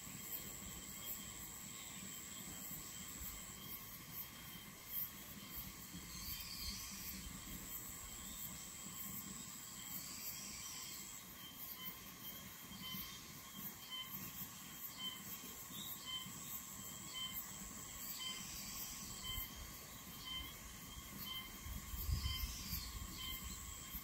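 Insects trilling in chorus, several overlapping steady high-pitched tones with one chirping in a regular pulse, faint. A low rumble comes in near the end.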